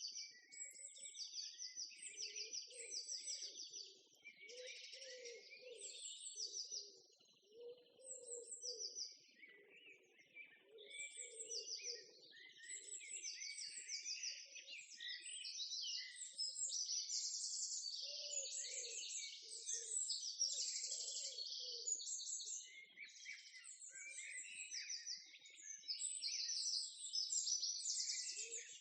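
Several songbirds singing at once, a dense chorus of quick overlapping trills and chirps, with some lower-pitched calls coming and going underneath.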